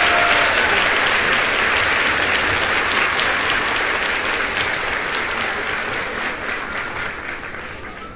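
Crowd applause, many hands clapping, growing steadily quieter and fading out toward the end.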